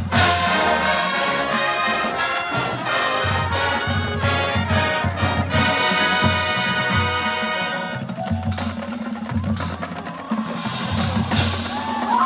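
Marching band brass section playing sustained loud chords over pulsing low drums, thinning out after about eight seconds.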